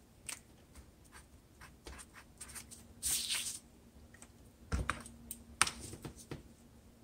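Light handling sounds on a wooden workbench: scattered faint taps and clicks, a brief papery rustle of the target sheet sliding about three seconds in, and a couple of sharper knocks from about five seconds in as a metal dial caliper is set down on the paper.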